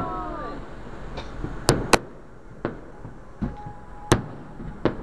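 Aerial fireworks shells bursting: a series of sharp, separate bangs, the loudest a close pair just under two seconds in and another about four seconds in.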